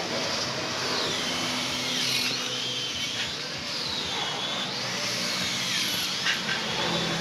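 Electric power tool running with a whining motor and a rough grinding noise; the whine rises and falls in pitch every couple of seconds as the load on it changes.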